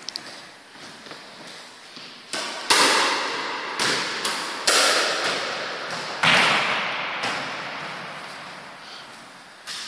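Squash ball being hit with a racket and smacking off the walls and floor of a squash court: about eight sharp cracks, each ringing out in a long echo off the hard walls, the loudest about three and six seconds in.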